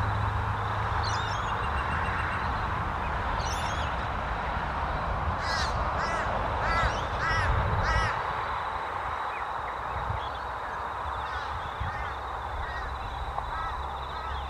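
Torresian crows calling: a quick run of short, arched caws midway, then fainter scattered caws. Under them is a steady low rumble that drops away about eight seconds in.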